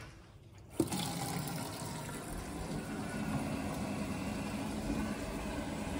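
Gas combi boiler starting up on hot-water demand: after a click about a second in, a steady hum and rush of the running boiler and the water flowing through it.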